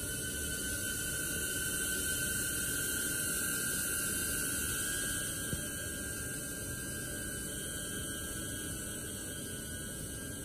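DJI Neo mini drone hovering, its four guarded propellers making a steady whirring buzz with a high whine. The sound eases off a little about halfway through as the drone backs away.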